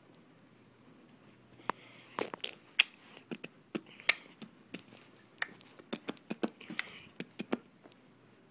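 Irregular sharp clicks and knocks with short bits of rustling, starting about a second and a half in.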